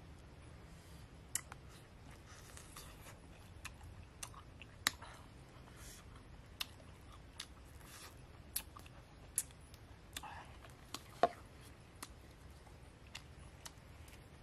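Small wood fire crackling with sharp, irregular pops about once a second, with soft crunchy chewing of grilled frog in between.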